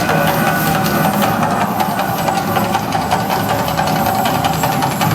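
Mirage volcano show erupting: a loud, steady rumble with hissing and fine crackling from its fire and effects.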